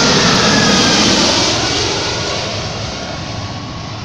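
Boeing 757 twin-engine jet airliner passing low overhead on approach to land. Its engine noise is loudest in the first second, then fades steadily as it moves away, with a few tones falling in pitch as it passes.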